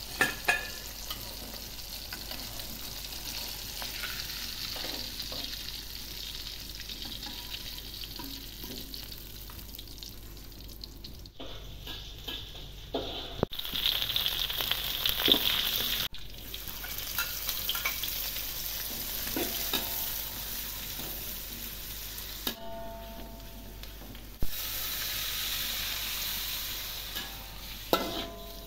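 Hot oil sizzling in a wok as a fish, then sliced aromatics and red chilies, fry; the sizzle breaks off and starts again several times. Near the end a spatula stirs through the oil and knocks against the wok.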